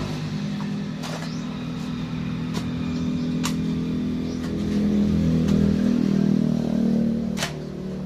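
An engine running nearby, a steady hum that swells for a couple of seconds past the middle and then drops back. A few sharp clicks of a spade striking sand.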